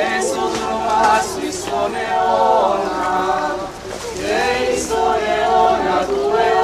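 A group of people singing a religious processional hymn together, unaccompanied, in long sung phrases with a short break about four seconds in.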